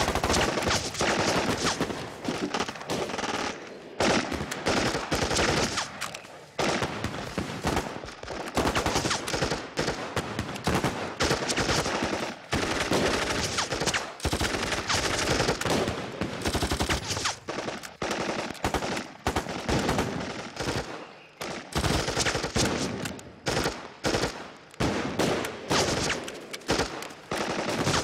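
Heavy gunfire in a firefight, with rapid bursts of automatic fire and rifle shots. The shots come close together for most of the time and thin out into more separate reports near the end.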